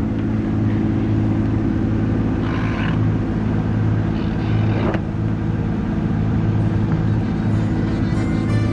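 A sailing yacht's inboard engine running at a steady drone while the boat motors along, with two brief higher sounds over it partway through.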